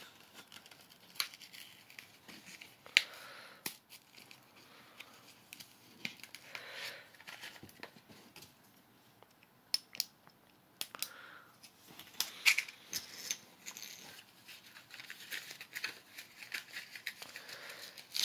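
Hands handling packaging and small items: scattered rustling and crinkling broken by sharp clicks and knocks at irregular intervals.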